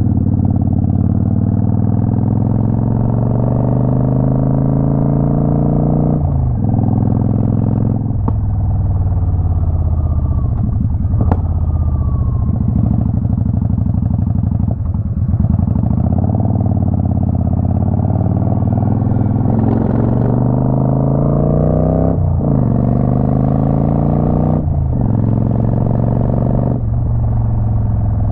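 Motorcycle engine running under way, its pitch rising and falling with the throttle, broken several times by short dips as the rider changes gear.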